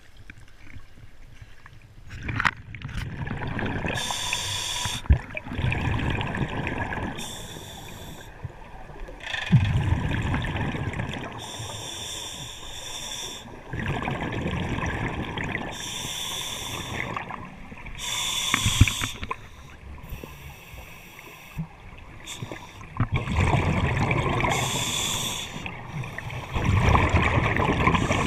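Scuba regulator breathing underwater: hissing inhales alternate with rumbling, gurgling rushes of exhaled bubbles every few seconds. Before that, briefly, water sloshing at the surface.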